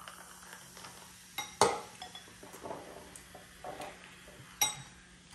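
Soda poured from a can into a glass of ice, then sharp clinks of the can, glass and bowls on the table. The loudest clink comes about one and a half seconds in and another near the end.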